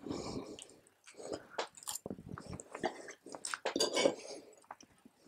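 Knife and fork cutting roast goose on a plate: irregular clinks and scrapes of metal cutlery against the plate.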